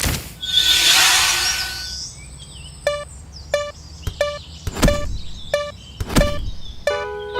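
A short noisy whoosh, then from about three seconds in an animated level-crossing alarm ringing steadily at about one and a half strikes a second, with deep thuds under some strikes and a held tone joining near the end.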